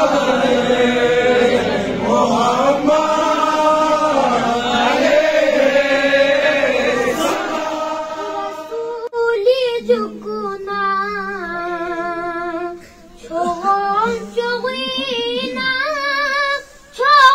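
Boys singing a devotional praise poem (madh) unaccompanied into a microphone, a child's voice holding long, wavering lines. The first half is fuller and denser; in the second half one clear young voice carries the melody, pausing briefly twice for breath.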